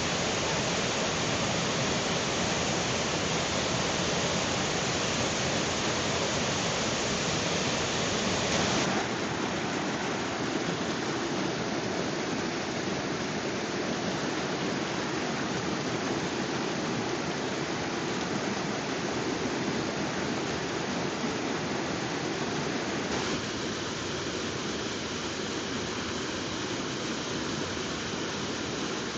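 Waterfall's steady rush of falling water. About nine seconds in, the sound changes abruptly, becoming less hissy and deeper. It shifts again, more slightly, about two-thirds of the way through.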